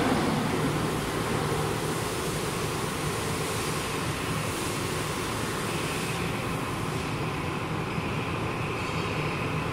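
Steady machinery noise on a factory floor: a continuous low hum with a thin high whine joining about six seconds in.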